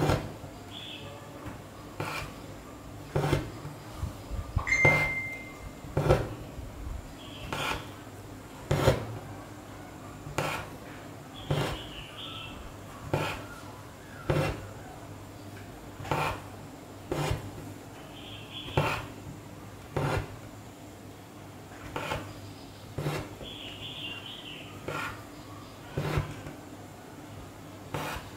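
Hand-embroidery needle punching through taut fabric, a sharp tap with each stitch at about one every second or so. Between some taps there is a faint rasp of thread being drawn through the cloth.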